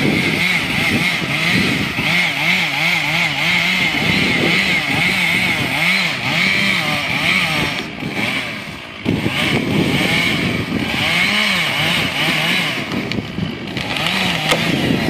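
Two-stroke chainsaw cutting through a tree trunk, most likely the back cut of a felling. The engine pitch wavers up and down as the chain loads in the wood, eases off briefly about eight seconds in, then revs back up and keeps cutting.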